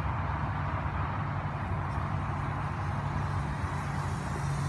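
Electric motor and propeller of a small foam RC airplane in flight, a steady distant buzz over a low, even rumble.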